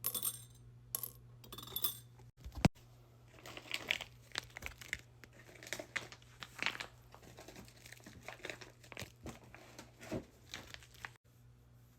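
Packaging crinkling and rustling in irregular bursts as squishy toys are handled and packed, with one sharp click about two and a half seconds in.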